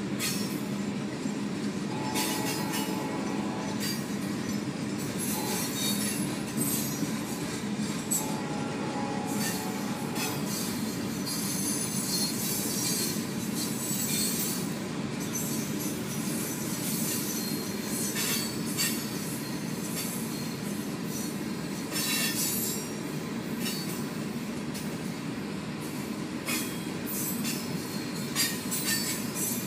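Freight train's cars rolling past a grade crossing: a steady low rumble from the wheels on the rails, broken by many sharp clicks and brief high metallic squeals from the wheels.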